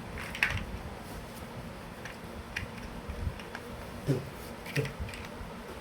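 Plastic toy building blocks being handled and pressed together, giving about half a dozen sharp, light clicks spaced irregularly, a second or less apart.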